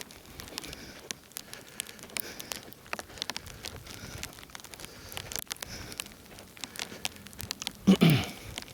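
Irregular crisp crackling ticks of snow and ice as he walks, with a short grunt from the walker near the end.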